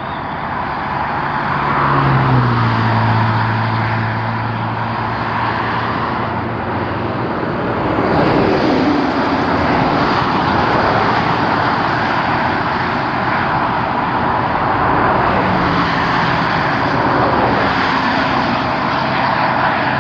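Car driving along a road: steady road and tyre noise with a low engine hum whose pitch shifts now and then.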